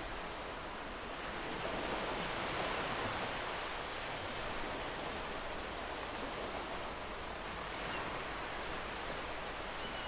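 Small ocean waves breaking and washing up a beach, a steady surf rush that swells slightly about two seconds in.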